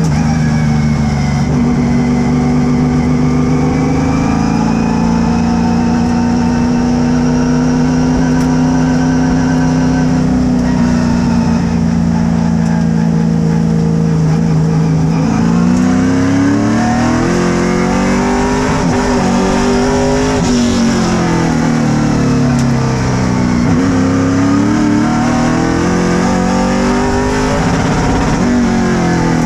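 Race car engine heard from inside the cockpit while lapping an oval track. It holds a steady speed for about the first fifteen seconds, then revs rise and fall over and over.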